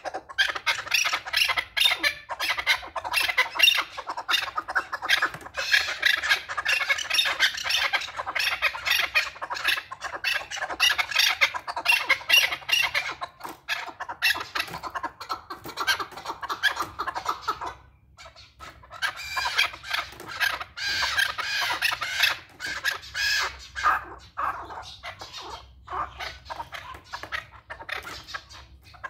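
Male chukar partridge calling: a fast, continuous run of chuk-chuk notes that breaks off briefly about eighteen seconds in, then starts again.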